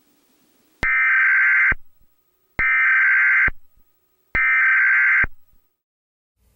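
Emergency Alert System header tones: three identical bursts of buzzy digital data tone, each just under a second and about 1.75 seconds apart. This is the coded header that opens a national Emergency Action Notification alert.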